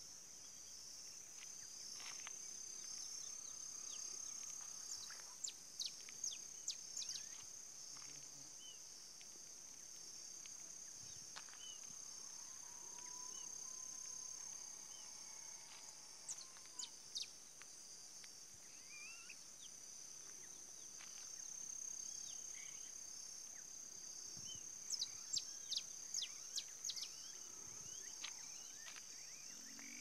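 Dusk countryside ambience: a steady high-pitched insect drone, with birds calling in clusters of short, sharp chirps a few seconds in, midway and near the end.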